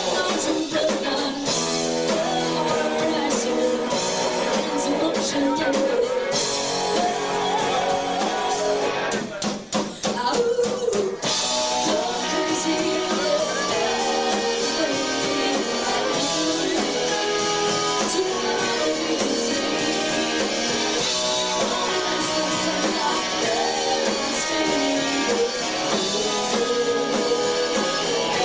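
Live rock band playing with a singer, guitars and drums, with a brief drop in the sound about ten seconds in.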